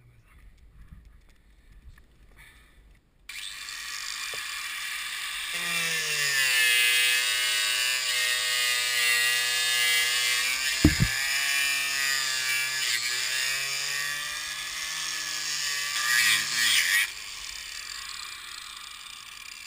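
Electric angle grinder cutting into fiberglass. It switches on about three seconds in and its motor pitch drops as the disc bites, running loud and wavering through the middle with a sharp knock around eleven seconds. It falls to a lower level near the end.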